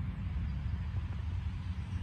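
Wind buffeting the microphone, a steady low rumble that flutters constantly, with a fainter hiss of wind above it.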